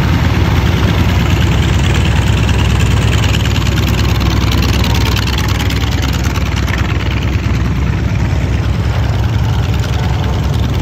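North American T-28 Trojans' radial engines running at low power as the aircraft taxi past, a loud, steady, deep engine drone.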